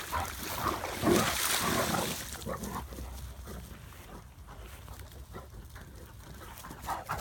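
Two Great Danes playing at a pond's edge: splashing in shallow water and dog vocal sounds for the first two seconds or so, then much quieter.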